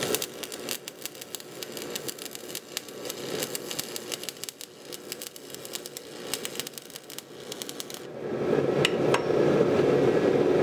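Electric arc welding: the dense, irregular crackle and sizzle of a welding arc laying a bead to join a steel bar to a layered steel billet, for about eight seconds. It then gives way to a steady low roar.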